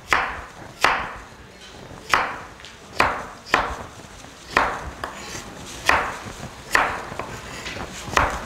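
Chef's knife chopping down through a raw vegetable onto a cutting board, dicing it into small cubes: about ten sharp chops at an uneven pace, roughly one a second.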